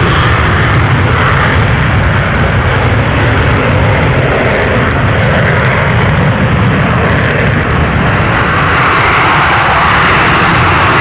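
F/A-18 Hornet jet engine roaring loudly and steadily across the airfield, the hiss growing a little brighter near the end. The uploader wonders whether it is on afterburner.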